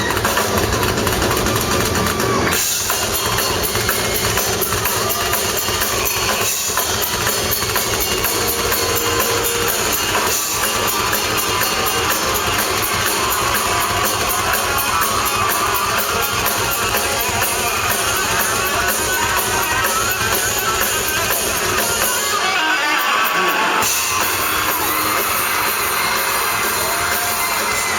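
Live rock band playing loudly, with electric guitar and drum kit, and the low end drops out briefly about 23 seconds in.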